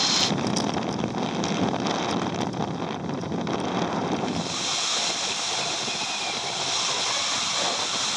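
Wind buffeting the microphone of an action camera mounted on a flying hang glider, a steady rushing noise with no engine. About four and a half seconds in, the lower rumble drops away and it becomes a brighter, steadier hiss.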